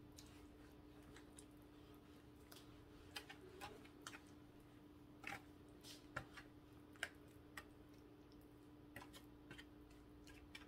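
Silicone spatula stirring thick strawberry pie filling in an aluminium foil pan: faint, irregular soft clicks and taps, over a steady low hum.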